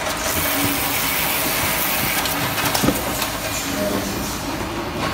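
Carton-packing line machinery running steadily with a hiss, and a short clatter of knocks about three seconds in as boxes move through the sealer and over a metal roller conveyor.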